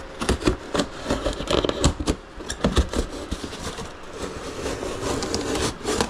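Styrofoam packing being cut and broken into smaller pieces with a blunt utility knife: an irregular run of crunching, cracking and scraping.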